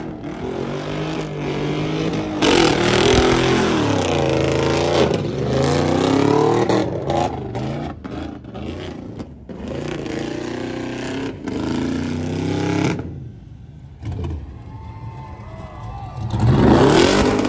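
Chevrolet Silverado pickup's engine revving hard up and down during a burnout, its rear tires spinning and smoking on the asphalt. The revs drop briefly about two-thirds of the way through, then climb again near the end.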